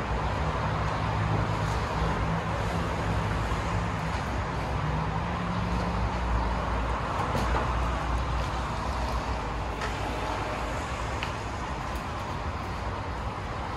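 Road traffic noise: a steady wash of passing cars, with one vehicle's engine hum prominent for about the first half, shifting pitch about five seconds in before fading. A few faint clicks come later.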